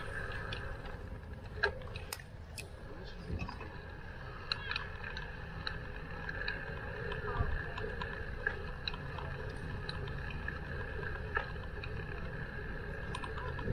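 Riding noise from a moving bicycle: a steady low rumble with scattered clicks and rattles.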